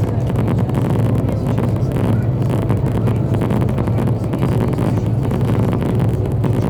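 Meteor hydrofoil's diesel engines running steadily under way: a strong constant low hum with a rushing noise over it.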